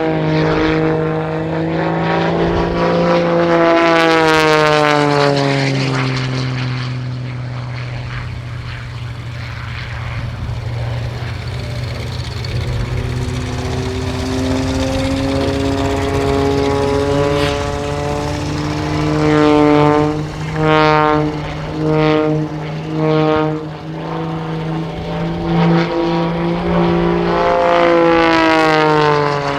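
Wolf Pitts Pro aerobatic biplane's piston engine and propeller during a display, the pitch rising and falling as it manoeuvres and passes. About two-thirds in, the engine note pulses four times, about once a second.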